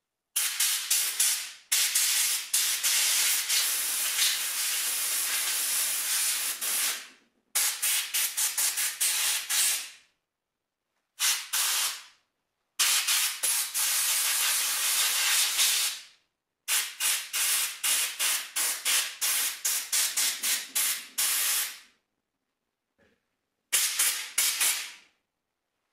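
Pressurised spray hissing in repeated bursts with sharp silences between. Some bursts run steadily for a few seconds; others are quick runs of short pulses.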